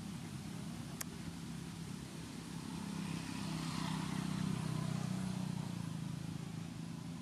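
Steady engine hum of a motor vehicle that swells louder in the middle of the stretch as it passes, then fades a little. A single sharp click about a second in.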